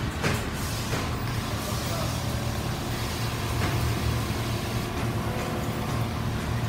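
Richpeace single-head quilting machines running together, a steady low mechanical hum with a few light clicks and knocks scattered through it.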